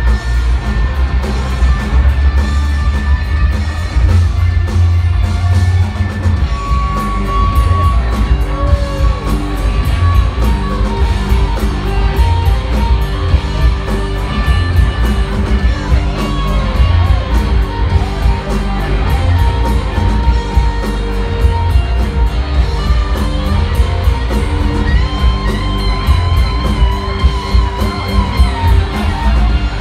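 Rock band playing live: electric guitars, bass guitar and drums, loud and continuous, with held and bending lead notes over the band.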